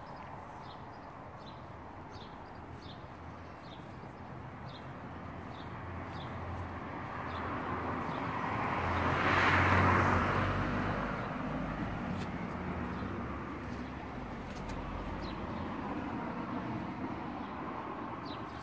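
A car passing by: engine and tyre noise swelling to a peak about halfway through, then fading away. A small bird chirps over it, about twice a second.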